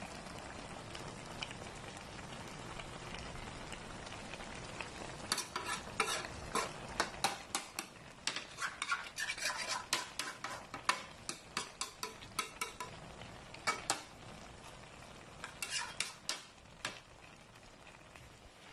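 A metal spoon stirs shredded jackfruit in a metal wok, clinking and scraping against the pan in quick irregular strokes over a low steady sizzle. The stirring starts about five seconds in and stops shortly before the end.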